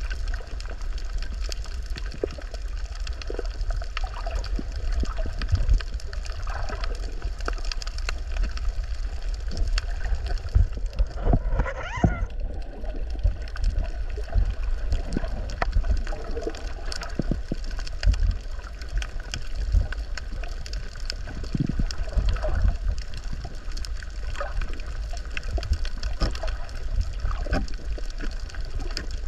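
Muffled underwater sound picked up by a camera held below the surface: a steady low rumble of moving water with scattered clicks and gurgling, and a louder burst of bubbling near the middle.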